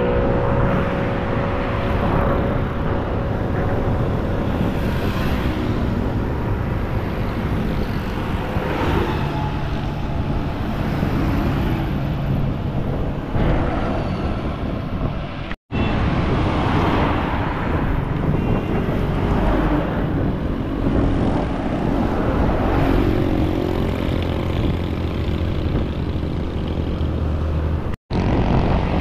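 Road traffic passing on a busy highway, with buses, cars, auto-rickshaws and motorcycles going by. There is a continuous engine and tyre rumble, and engine tones swell and shift in pitch as each vehicle passes. It cuts out for an instant twice, at about the middle and near the end.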